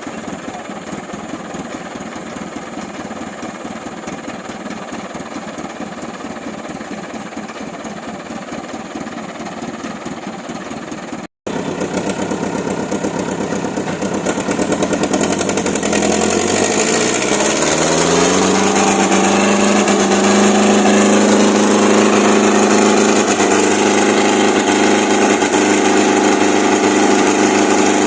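An old truck's diesel engine running steadily with a rapid chugging pulse. After a sudden break about eleven seconds in, the engine revs climb over several seconds and hold high and loud under strain, as the truck pushes through deep mud.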